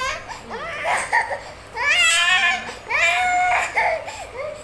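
Baby crying in a series of high-pitched wails, each around a second long, the loudest about two seconds in.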